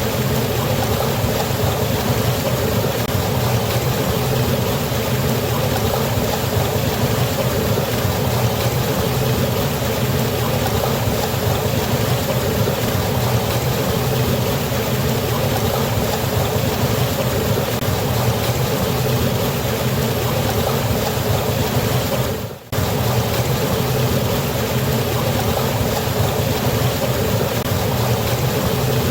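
Waterfall on a river: a steady, unbroken rush of falling water, with a brief dropout about three-quarters of the way through.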